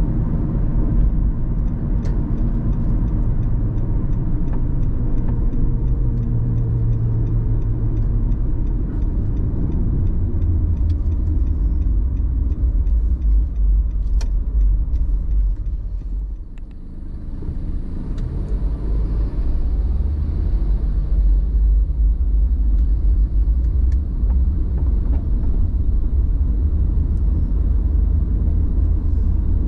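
Car driving on the road: a steady low rumble of engine and tyres, briefly quieter a little over halfway through, then building back up.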